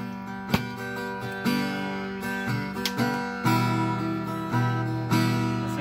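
Acoustic guitar being strummed. A new chord is struck about every second and left ringing between strokes.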